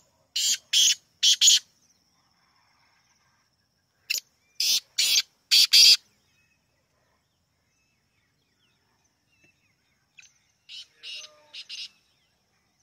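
Black francolin calling three times. Each call is a short lead note followed by three or four quick rasping notes, and the third call is fainter. The call is clear, with no hoarseness in the throat.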